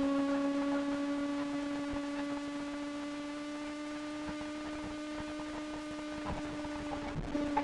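Kawasaki ZX-25R's 250 cc inline-four engine running at steady high revs under way, a high, even whine that sags slightly in pitch, with a rush of wind beneath it.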